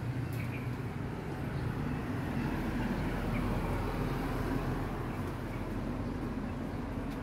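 Steady low rumble of city traffic, with a deeper hum coming in about two seconds in.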